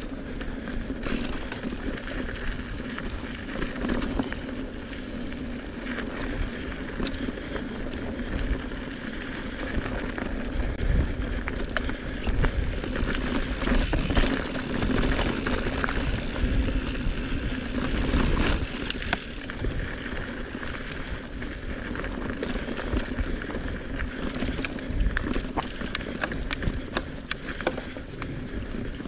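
Mountain bike being ridden along a dirt trail: steady tyre and trail noise with many quick rattles and clicks from the bike over rough ground, and a stretch of louder hiss partway through.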